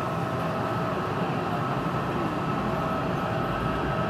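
Yurikamome rubber-tyred automated guideway train running slowly along its concrete guideway, heard from inside the front of the cabin: an even rolling rumble with a steady high whine.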